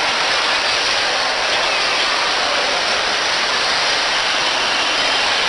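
Steady, even background din of a busy shopping-mall hall, with no single event standing out.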